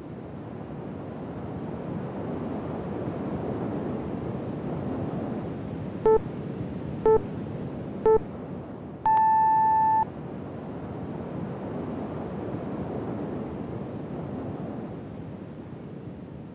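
Workout interval timer counting down the last seconds of a side plank: three short beeps a second apart, then one longer, higher beep marking the end of the interval. A steady rushing noise runs underneath.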